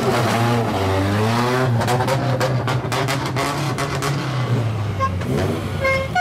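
Straight-piped exhaust of a lowered old Japanese car revving as it pulls away, the pitch rising and then falling, with a run of sharp crackles in the middle. Near the end a melodic horn starts playing a tune in clear stepped notes.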